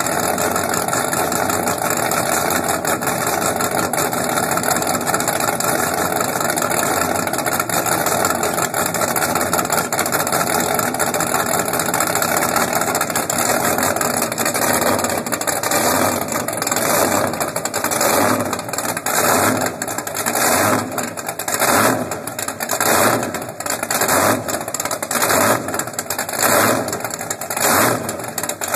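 Twin engines of a sterndrive performance boat running on the trailer, exhausting through the stern tips. They make a steady rumble at first, then from about halfway the sound rises and falls about once a second.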